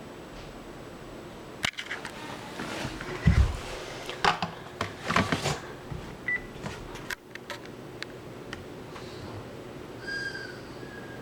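A Panasonic cordless phone handset being handled: clicks, rustling and a thump, then a short electronic beep a little past the middle, more clicks, and a brief two-part beep near the end.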